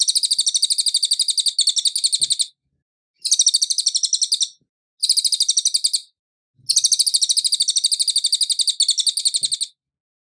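Cililin songbird singing in four bouts of a fast, high-pitched trill of rapidly repeated notes, the bouts broken by gaps of about half a second to a second; the longest bout comes near the end.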